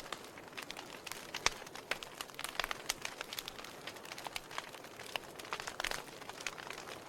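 Wood fire crackling in a fireplace: burning logs give irregular sharp pops and snaps over a soft steady hiss, with one louder pop about one and a half seconds in.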